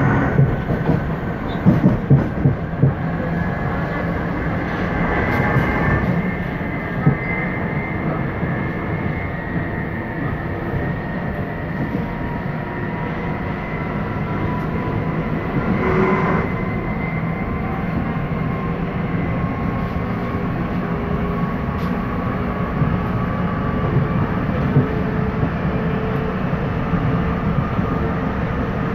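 Running noise heard inside an electric commuter train: a steady rumble of wheels on rail, with a few thin high tones that drift slowly in pitch. A cluster of sharp clicks about two seconds in is the loudest part.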